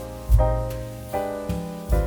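Background piano music: chords and bass notes struck about once a second, each ringing and fading before the next.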